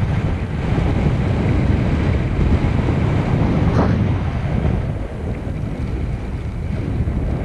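Strong wind buffeting the microphone of a helmet camera, a steady low rumble, with a brief rising whoosh about four seconds in.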